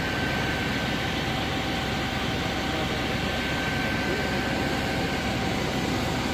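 Parked fire engine's engine running steadily: a constant drone with a faint steady whine over it.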